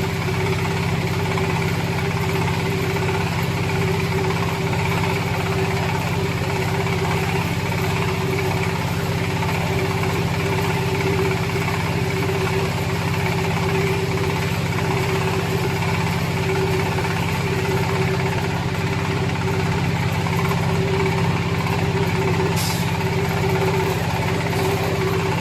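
Corn silage baler and wrapper machine running steadily, a constant mechanical hum with a steady drone that does not change.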